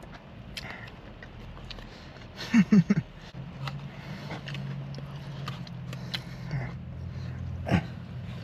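Eating sounds: a fork scraping and tapping in a plastic takeout bowl, with chewing. Three short, loud, low-pitched sounds come a little before the middle, and a low steady hum runs through the second half.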